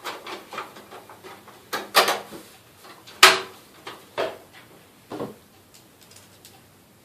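Hands working on the parts of a desktop computer case: a few scattered clicks and knocks, the sharpest about three seconds in.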